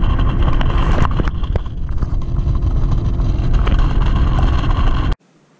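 Bass boat's outboard motor running at speed, a steady drone with a whine over it and heavy wind buffeting the microphone. It cuts off suddenly near the end.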